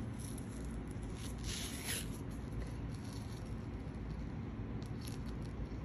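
Athletic tape being pulled off the roll and wrapped around an ankle: a longer peel about one and a half to two seconds in, then a few short crackles near the end, over a low steady background hum.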